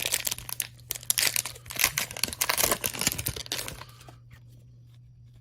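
Wrapper of a hockey card pack being torn open and crinkled: dense crackling that stops about four seconds in.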